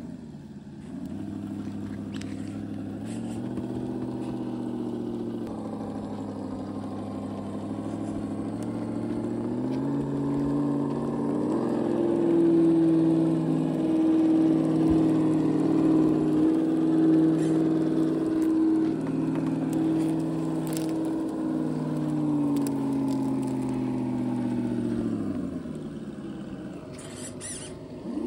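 Electric motor and gearbox whine of a Huangbo 1/10 scale RC crawler, a Traxxas Bronco clone, driven over dirt and rocks. The pitch shifts with the throttle, climbing and getting louder about ten seconds in, pulsing on and off through the middle, then falling away a few seconds before the end.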